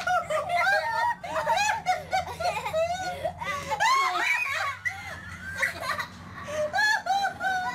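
People laughing in quick, repeated high-pitched peals, with hardly a pause, over a low steady hum.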